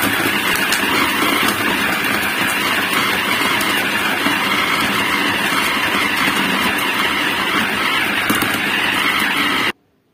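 Electric food chopper running steadily at full speed, chopping raw boneless chicken with onions, garlic and green chillies into kofta mince. The motor stops suddenly near the end.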